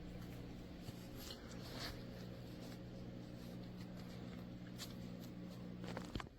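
Steady low electrical hum that cuts off near the end, with faint scattered rustles and clicks of something being handled.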